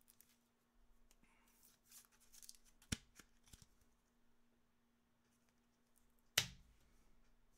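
Trading cards being handled: faint rustling and light clicks, with a sharp snap about three seconds in and a louder one about six seconds in.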